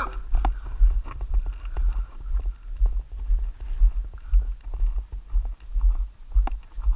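Footsteps on a damp dirt-and-gravel road, a crunch with each stride and a low thump on the body-worn microphone about twice a second.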